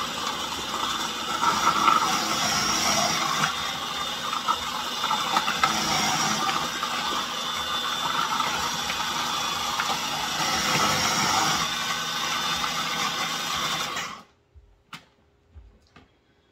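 KitchenAid food processor running with its shredding disc, grating baby carrots fed down the feed tube, a loud steady rattling whir. The motor cuts off abruptly about fourteen seconds in, followed by a couple of light clicks.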